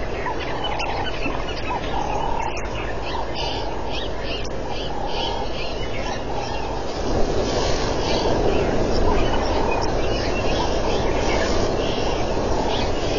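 Repeated short high-pitched chirping calls over a steady background hiss that grows louder about seven seconds in.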